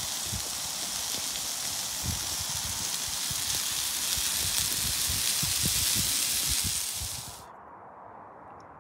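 Potatoes, onion and ham sizzling in a frying pan over a wood-burning stove: a steady frying hiss with low crackles and knocks. It cuts off suddenly about seven seconds in, leaving quiet background with a few faint ticks.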